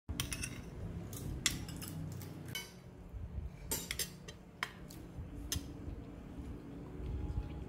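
A metal spoon and fork clinking and scraping against a plate, with a string of sharp, irregular clinks as the last food is scooped up and the cutlery is set down.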